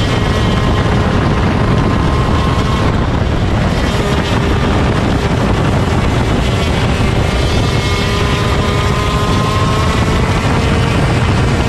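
125cc two-stroke shifter kart engine running hard at racing speed, its note drifting slowly up and down.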